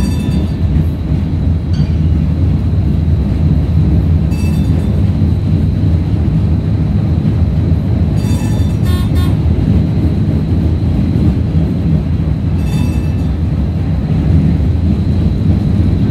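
DC Streetcar heard from inside the car while it runs along the street: a steady low rumble of motors and wheels on rail, with a faint steady high whine and a few brief high-pitched sounds.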